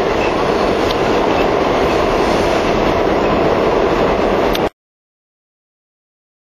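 Subway train running, a steady loud noise of the moving train on its track. It cuts off suddenly a little before five seconds, followed by dead silence.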